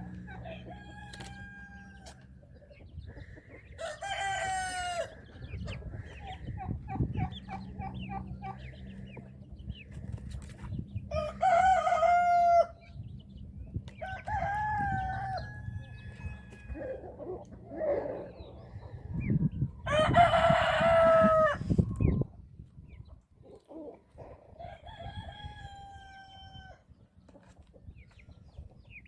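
Roosters crowing three times, the last crow the longest and loudest, with shorter poultry calls and clucks in between. A steady low hum runs underneath and stops about two-thirds of the way through.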